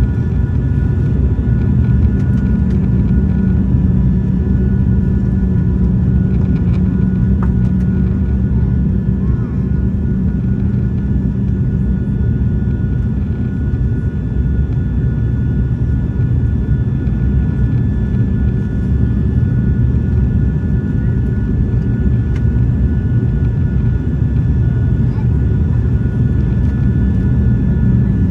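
Cabin noise of an ATR 72-600's twin turboprops on final approach: a steady low drone with a strong hum and a few thin, steady high-pitched tones above it.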